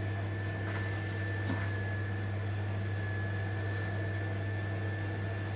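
Steady interior noise of a night-train passenger coach: a strong low hum with a thin high whine over it, and two faint clicks about a second in.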